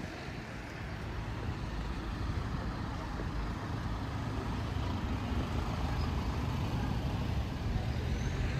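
Road traffic on a city street: the rumble of vehicle engines and tyres, slowly growing louder.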